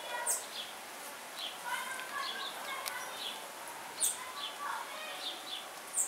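Several wild birds chirping and calling: many short high chirps, with a few quick falling whistles about a third of a second in and again about four seconds in.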